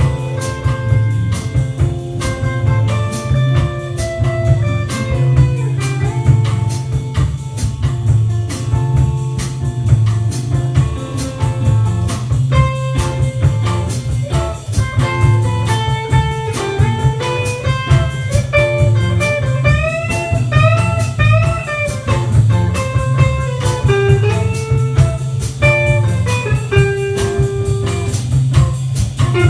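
A small band playing an instrumental jazz piece: a guitar plays single-note melody lines over bass and a drum kit. The guitar bends several notes about two-thirds of the way through.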